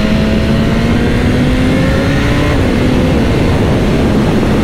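BMW S1000R inline-four engine pulling under acceleration, its pitch climbing steadily, then dropping at an upshift about two and a half seconds in, over heavy wind noise.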